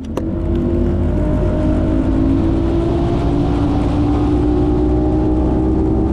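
Bass boat outboard motor running at speed, building up over the first second and then holding a steady drone, with a heavy low rumble underneath.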